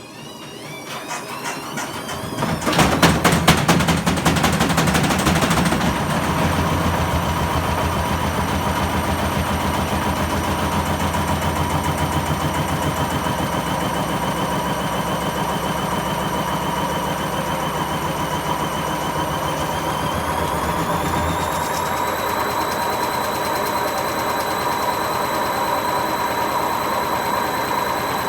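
Hotpoint WMA50 washing machine, its ballast weights removed, speeding up into a spin. For a few seconds the unbalanced drum knocks and bangs hard, then it settles into a steady spin with very bad bearing noise and a motor whine that rises in pitch about twenty seconds in.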